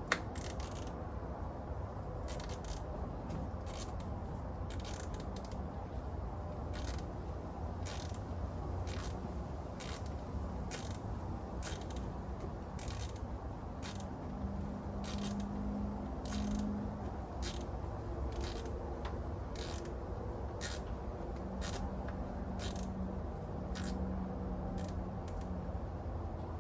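Hand ratchet clicking in short irregular strokes, about one or two clicks a second, as an ignition coil hold-down bolt on a 5.7 Hemi V8 is snugged down, over a steady low hum.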